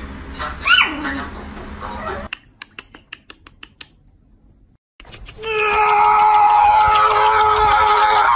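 A puppy gives one short whine that rises and falls, then its claws tick lightly on a wooden floor. After a brief quiet, a loud, steady, high held cry starts about five seconds in and goes on for about three seconds.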